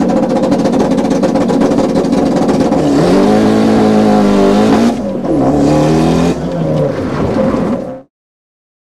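A racing car's engine revving hard, its pitch sweeping up and down between gears, then cutting off suddenly about eight seconds in.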